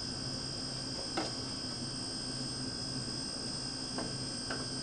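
Steady hum with a thin high whine, broken by a few light clicks and knocks. Near the end the knocks come from a wooden spoon stirring scrambled eggs in a nonstick skillet.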